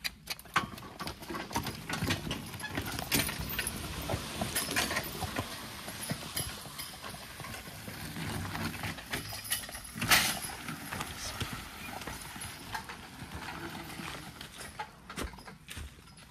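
A pair of draft horses walking as a team, hooves clopping irregularly, with one sharp, loud knock about ten seconds in.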